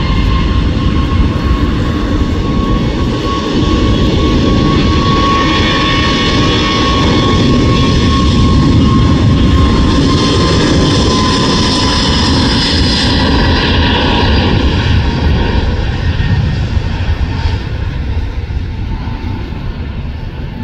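Twin-engine jet airliner's engines at takeoff power during the takeoff roll: a loud steady jet noise with a clear fan whine that drops slightly in pitch as the aircraft passes, fading over the last few seconds as it moves away.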